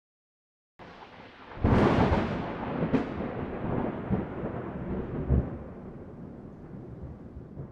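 Thunder: a faint rumble begins, then a sharp crack about a second and a half in and a second, shorter crack a little later, followed by a long rolling rumble that slowly fades away.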